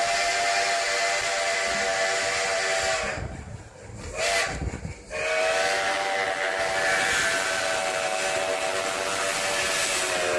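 Steam locomotive's whistle blowing at the head of the train, heard from a passenger car: a long blast of about three seconds, a short toot about four seconds in, then another long blast of about five seconds.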